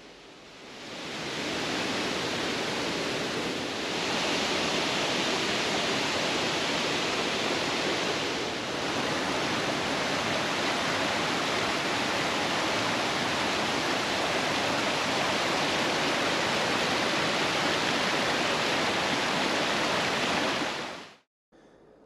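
Creek waterfall spilling over a low dam: a loud, steady rushing of falling water that fades in over the first couple of seconds and cuts off suddenly near the end.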